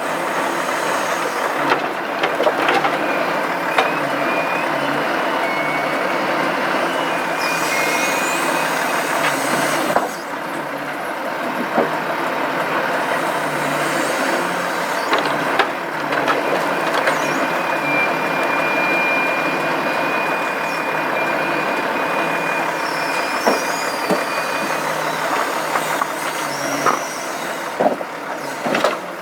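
A Volvo FH logging truck's diesel engine runs steadily while timber is loaded with the truck's crane. A thin high whine comes and goes, and sharp knocks sound now and then.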